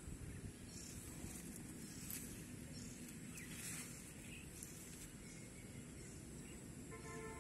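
Quiet outdoor garden ambience: a low steady rumble with faint, scattered high chirps. A brief pitched call sounds near the end.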